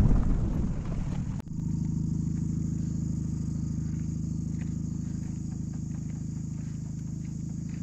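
Rumbling noise from inside a moving car, which cuts off abruptly about a second and a half in. Then a steady low hum made of several even tones, under a steady high buzz of insects.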